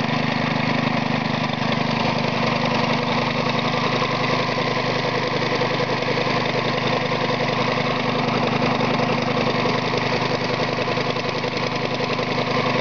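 Homemade air compressor built from a Briggs & Stratton lawnmower engine, belt-driven and running steadily as it pumps air into its tank. The pitch and level hold even throughout, with no change in speed.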